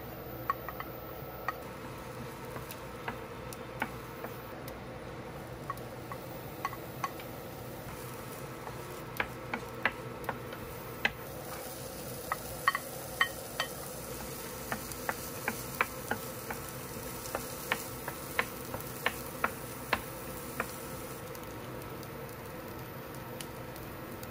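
Chopped garlic, onion and carrot sizzling in oil in an electric griddle pan, over a steady hum, with scattered sharp ticks and taps from a wooden spoon scraping the vegetables off a plate into the pan, thickest in the middle.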